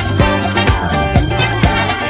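Upbeat funk/disco-style dance music with a steady beat, about two beats a second, over a sustained bass line.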